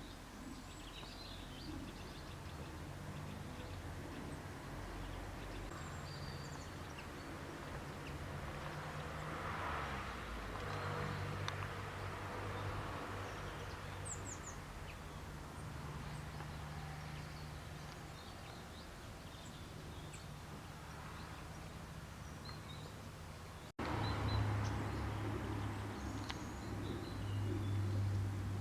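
Outdoor ambience: faint, scattered bird chirps over a steady low hum, which is louder after an abrupt cut near the end.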